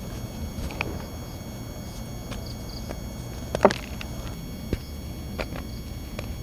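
Dry, gritty reformed cornstarch blocks crunching and crumbling in a few sparse, sharp crackles, the loudest a little past halfway, over a steady electrical buzz on the recording.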